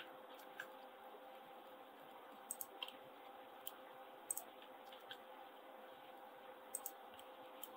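Faint, irregular clicks of a computer mouse and keyboard, some in quick pairs, over a steady faint hum.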